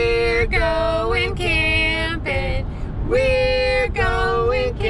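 Singing voice carrying a melody in long held notes with short breaks between them, over a steady low rumble.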